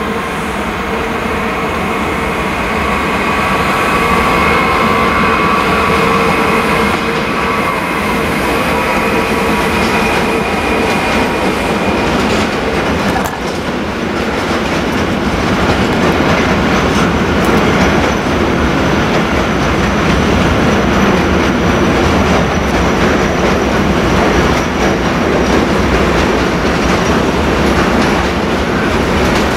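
Intermodal freight train's container flat wagons rolling past on the rails, a steady rumble of wheels on track. A steady whine rides over it through the first twelve seconds or so.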